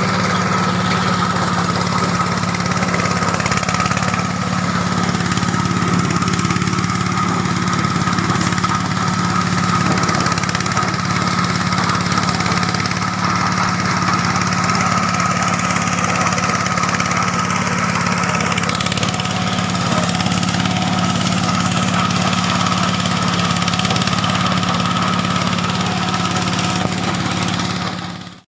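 Engine-driven SM-10 corn sheller running steadily, a continuous motor sound with a constant hum and whine. It fades out at the very end.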